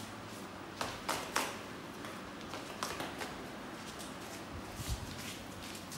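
Pitbull puppy's claws and paws tapping on a tiled floor as it walks: a few scattered light clicks over a steady background hiss.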